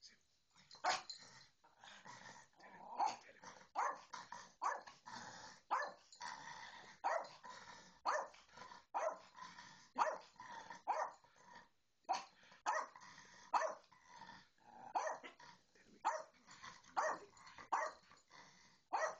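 Small Yorkshire terrier barking and growling over and over, about two sharp barks a second.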